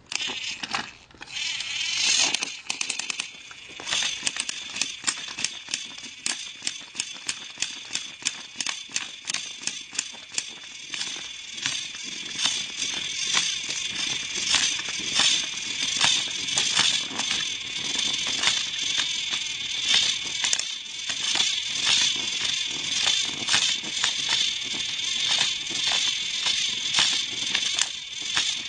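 Battery-powered toy train motors running with a steady high whir and a rattle of regular clicks, about two or three a second, as the engines pull against each other in a tug of war.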